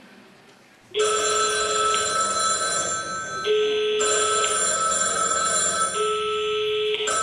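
A telephone ringing: three rings about two and a half seconds apart, starting suddenly about a second in.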